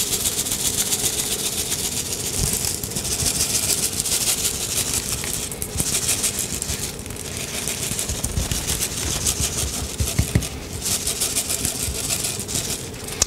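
Coarse ground black pepper rattling in a shaker bottle as it is shaken steadily over a raw brisket: a dense, dry, maraca-like rattle with a few short breaks.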